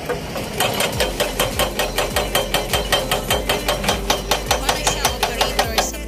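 Hydraulic breaker on a Kobelco SK200 excavator hammering into hard limestone rock: a fast, even train of blows, several a second, starting about half a second in over the low steady hum of the machine.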